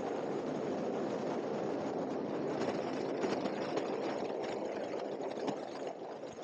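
Steady engine noise, dense and low, easing off a little near the end.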